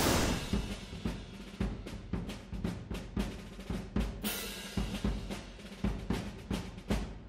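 Background music with a drum-kit beat: kick and snare hits about twice a second, with a cymbal crash about four seconds in. A short rush of noise opens it.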